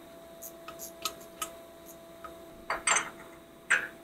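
Light metallic clicks and clinks as metal parts and tools are handled at a CNC ball screw's end-bearing housing. A few faint ticks give way to several sharper clinks in the last second and a half, over a faint steady hum.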